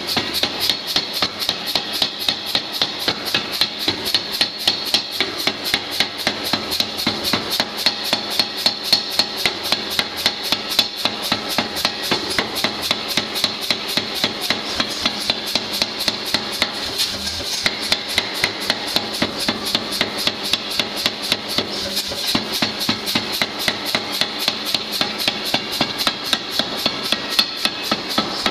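Hammer blows forging a 3-inch round steel bar, a fast, even beat of about five or six blows a second.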